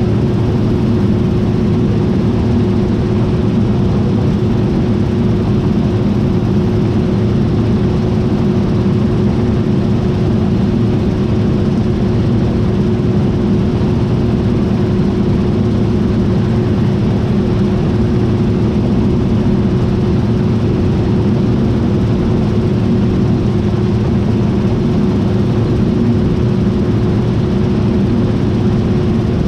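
John Deere T660i combine harvester running steadily: a continuous machine drone with one constant tone above it, unchanging throughout.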